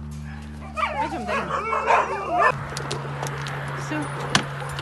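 A dog whining and yelping in a quick run of high, wavering cries for about two seconds, starting about a second in. A single sharp click near the end.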